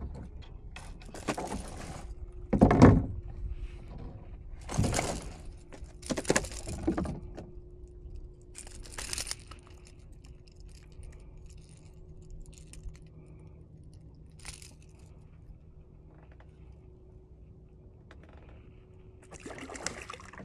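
Handling noises as a small fish is unhooked in a kayak: a string of short rustles, clatters and knocks in the first ten seconds, the loudest a heavy knock about three seconds in. Then a quieter stretch with a faint steady hum, and another brief rustle near the end.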